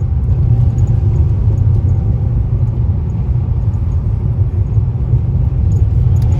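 Steady low rumble of a car's engine and road noise, heard from inside the cabin.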